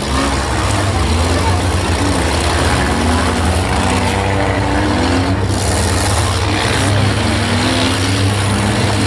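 Demolition derby cars' engines running loudly and steadily, with the pitch wavering up and down as they rev.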